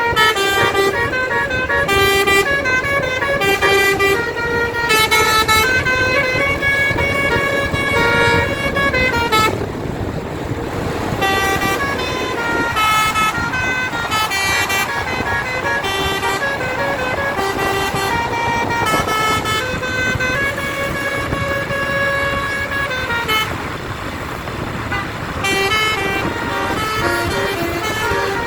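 Indonesian 'basuri' bus horns playing tunes: quick sequences of stepped, organ-like horn notes rising and falling, with a couple of short breaks between phrases, over the rumble of running bus engines.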